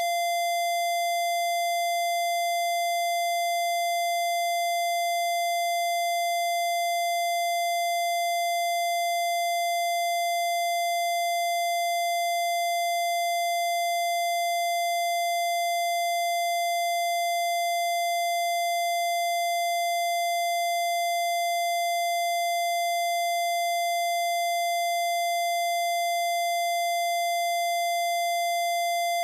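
Synthesized electronic test tone: one steady held pitch of roughly 680 Hz with bright, buzzy overtones, starting abruptly out of silence and holding unchanged.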